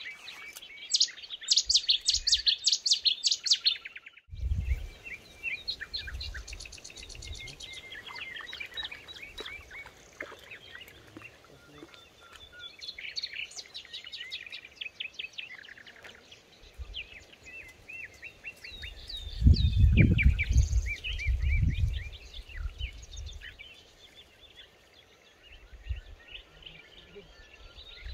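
Several songbirds singing and chirping at once, with a fast repeated trill loudest in the first few seconds that cuts off suddenly about four seconds in. A low rumble on the microphone swells about twenty seconds in.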